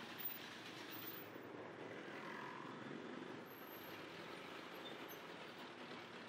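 Steady city street background noise: faint, even traffic rumble and hubbub with no distinct events.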